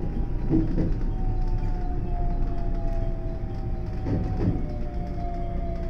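JR West 521 series electric train running over the rails as it slows into a station, its traction motors whining with a slowly falling pitch over a steady low rumble. There are two brief rattles, about half a second in and near four seconds in.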